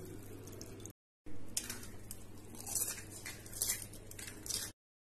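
Kitchen utensil handling: a steel ladle clicking and scraping against a steel pot in short, irregular bursts over a low background hum. The audio drops out briefly twice.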